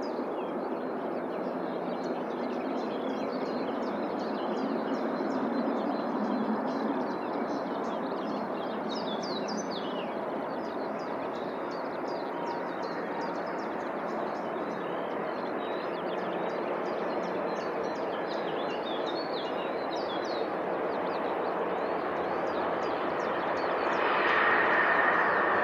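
Small birds chirping repeatedly over a steady wash of background noise. Near the end a jet airliner's engines grow louder with a rising whine as it approaches.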